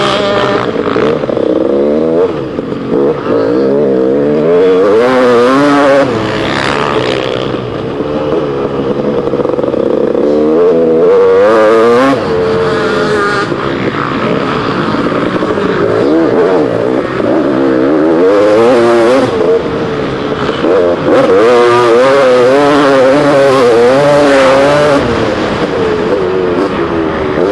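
Motocross bike engine heard close up from the rider's helmet camera, revving up and down over and over as the rider accelerates, shifts and shuts the throttle round the dirt track. There are brief dips several times where the throttle is closed.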